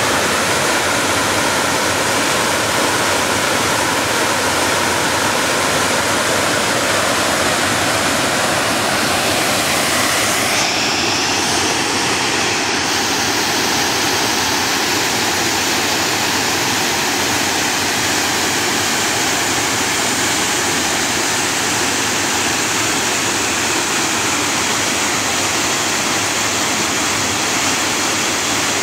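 Water pouring over a low dam's spillway and churning white below it: a loud, steady rushing.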